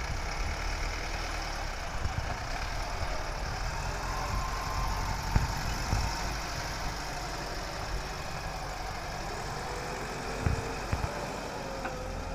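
Loaded tipper truck's diesel engine running steadily as it pulls away, with a few short knocks over it.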